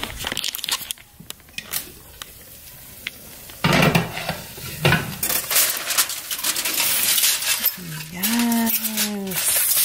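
A few light clinks and knocks, then aluminium foil crinkling and rustling as a foil-covered dish is handled. Near the end a woman's voice draws out a vowel.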